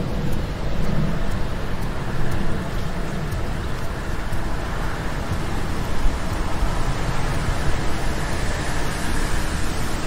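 Steady rushing background noise with a low rumble and no distinct events.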